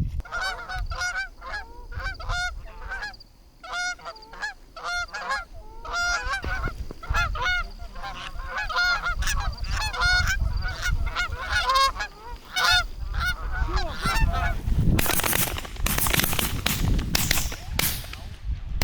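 Canada goose honks and clucks, dozens in quick succession, stopping about three-quarters of the way through. Then a few seconds of loud rustling noise.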